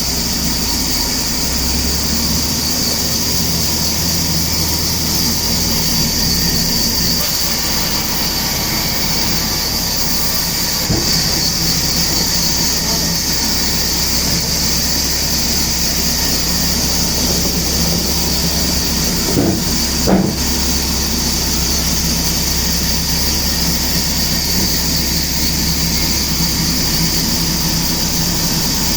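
Sawmill machinery running steadily with a loud, high hiss over a low hum, and a few brief knocks: one about eleven seconds in and two close together around twenty seconds in.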